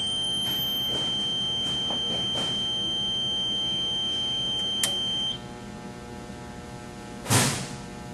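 Steady high-pitched electronic buzzer tone, an alarm sounding while a 6,000-volt surge is applied to the Multilink BlackHawk's output. It holds for about five seconds and cuts off just after a single sharp snap. Near the end comes a brief loud whoosh that falls in pitch.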